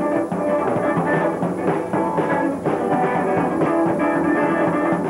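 Band music with guitar and drums playing steadily.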